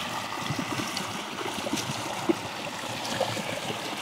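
Shallow stream running over stones: a steady rush of water with small scattered clicks.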